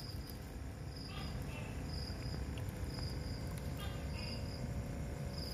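A night insect chirping in the high register, one short chirp about every second, over a low steady background rumble.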